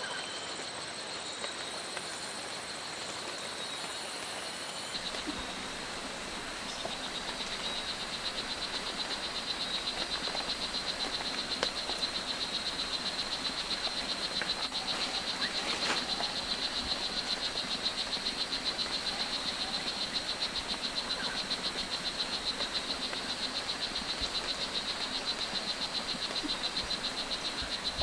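Strawberry poison dart frog calling: a long, steady run of rapid, evenly repeated high chirps that starts about five seconds in.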